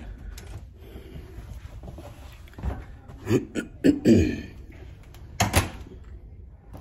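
A few short knocks and clicks, the loudest a sharp click about five and a half seconds in.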